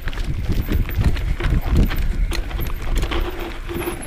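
Mountain bike clattering and rattling over a rough, rooty forest trail descent, with wind rumbling on the camera microphone.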